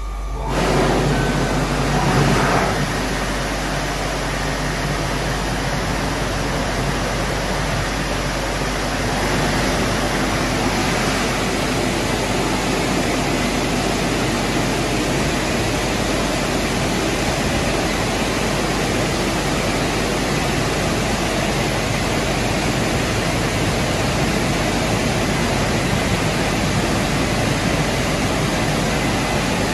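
WashTec automatic car wash running: water spray and rotating brushes washing over a car, a steady rushing noise that comes on just after the start.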